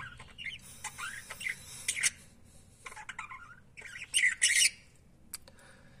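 A flock of budgerigars chattering and squawking: short scratchy calls through the first half, then a louder burst of harsh squawks about four seconds in.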